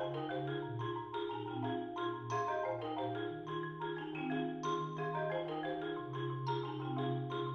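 Background music: a quick, repeating pattern of short struck notes over held low bass notes.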